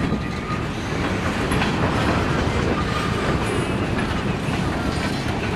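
Freight train of boxcars rolling slowly past: a steady rumble of steel wheels on rail, with scattered clicks and clanks from the wheels and couplers.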